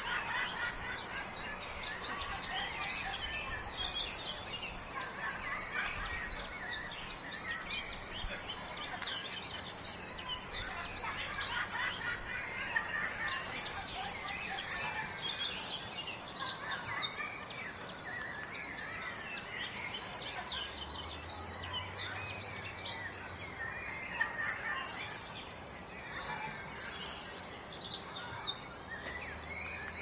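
Many small songbirds chirping and singing at once, a dense chorus of short high calls and quick whistles that overlap throughout, over a steady background hiss.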